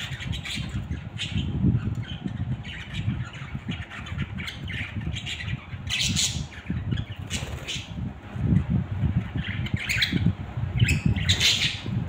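A flock of budgerigars squawking and chattering in short, harsh calls, with bursts of calling about halfway through and again near the end, over a steady low rumble.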